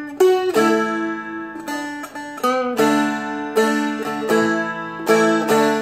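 Seagull Merlin, a small fretted dulcimer-style instrument, picked: a short melody of single notes over ringing open drone strings, with a few notes slid into.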